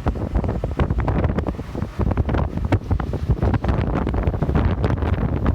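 Wind buffeting the microphone: a heavy low rumble with constant irregular crackling gusts.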